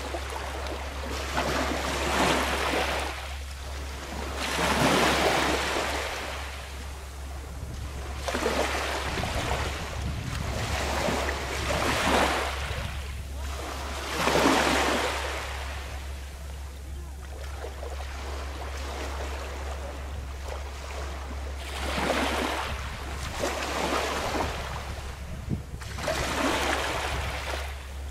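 Sea waves washing in and receding every few seconds, each wash swelling and fading, over a steady low rumble.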